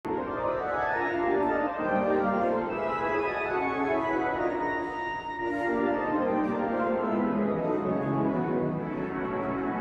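Cathedral pipe organ playing slow-moving sustained chords, held notes shifting step by step; it is an organist's practice session.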